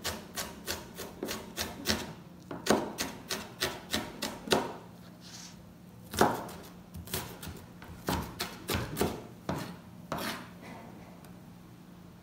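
Chef's knife chopping a white onion finely on a plastic cutting board: quick runs of sharp taps of the blade on the board, with short pauses between runs, and fewer taps near the end.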